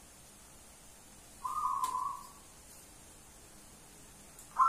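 Zebra dove (perkutut) giving one drawn-out call about a second and a half in, a steady note that fades away within a second. A louder, pulsing sound starts just at the very end.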